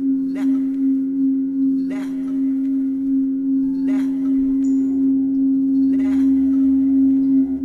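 Film soundtrack of a steady ringing drone with overtones, with a sharp strike about every two seconds.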